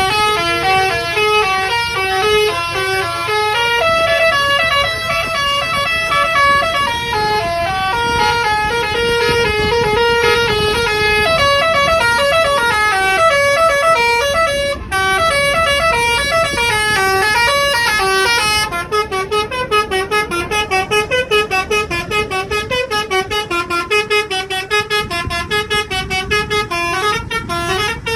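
Bus telolet horn playing a melody of stepped, multi-note tones. About two-thirds of the way through it changes to a run of quick, short repeated notes.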